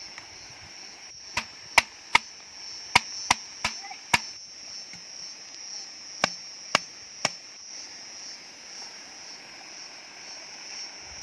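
A machete chopping into a green bamboo stalk: seven sharp hacks in the first few seconds, then three more about half a second apart a little past the middle. Insects keep up a steady high drone behind the blows.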